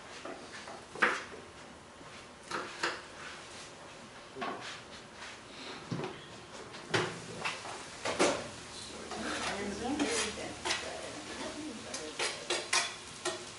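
Clinks and clatter of dishes, pans and metal utensils: about a dozen separate knocks at irregular intervals.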